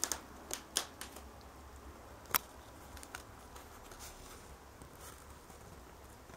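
Quiet room with a few faint, sharp clicks and ticks: a small cluster in the first second and a single louder click about two and a half seconds in.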